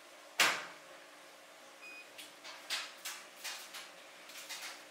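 Front-loading laundry machine's door shut with a thud, then one short beep and a run of light clicks as the buttons on its control panel are pressed.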